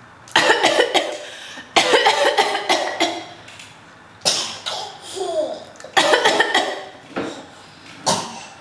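A toddler making pretend coughs: five fits of several short, sharp coughs each, with pauses between them and a brief falling vocal sound about halfway through.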